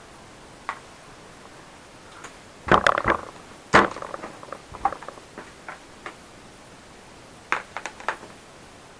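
Scattered clicks and knocks from the laptop being handled: a loud cluster about three seconds in, lighter ticks after it, and another short cluster near the end, over a steady hiss.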